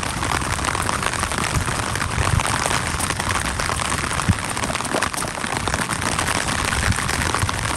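Steady rain: a dense patter of drops close to the microphone over a low, uneven rumble.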